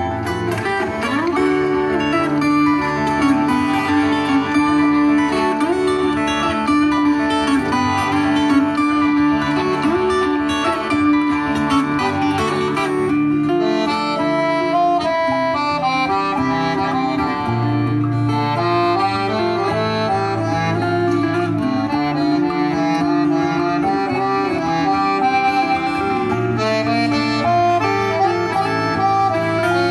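Live instrumental folk music: an accordion plays a sustained melody over a plucked acoustic string instrument's accompaniment.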